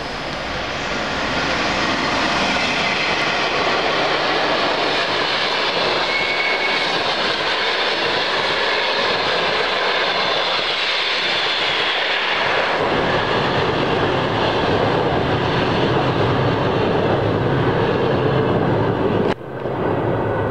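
A passenger train hauled by a ChS7 electric locomotive passes through at speed, with a loud, steady rush of wheels on rails and coaches going by. The rumble gets deeper about twelve seconds in. Near the end the sound drops sharply for a moment, then carries on.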